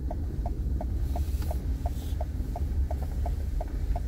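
A car's turn-signal indicator ticking evenly inside the cabin, about three short ticks a second, over low engine and road rumble as the car turns in slowly.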